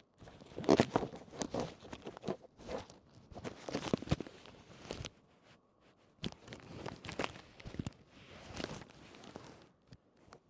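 Irregular close-up handling noise: rustling and crinkling with light clicks and knocks, in two spells with a short pause between.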